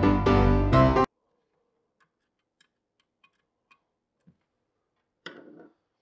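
Background piano music that cuts off suddenly about a second in, followed by near silence with a few faint clicks and a brief quiet handling noise near the end.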